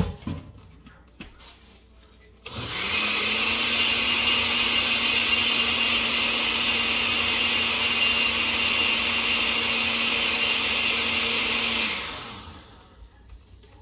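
Countertop blender blending a liquid mix of toasted wheat flour and water. A knock as the lid is set on comes first. The motor starts about two seconds later, runs steadily with a hum for about nine seconds, then is switched off and winds down near the end.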